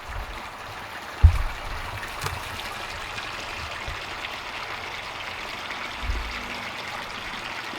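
Steady rush of water from a submersible sump pump, now running properly with its trapped air cleared. A dull low thump comes about a second in, and a softer one near six seconds.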